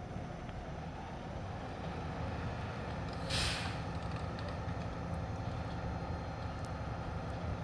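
Diesel engine of a Heil front-loader garbage truck on an ACX chassis running steadily, with one short burst of air hiss about three seconds in.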